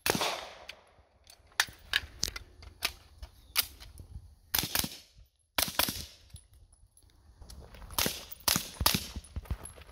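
Pistol-caliber carbine firing in semi-auto: single shots and quick pairs, about a dozen in all, with short pauses between strings.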